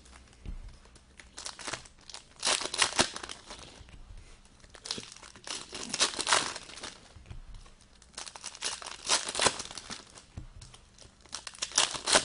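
Foil trading-card pack wrappers being torn open and crinkled in hand, in four bursts of crackling a few seconds apart.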